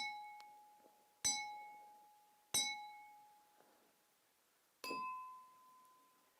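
Four clear ringing dings like glass or a small bell being struck: three at the same pitch about a second and a quarter apart, then a fourth at a slightly higher pitch, each ringing out and fading slowly.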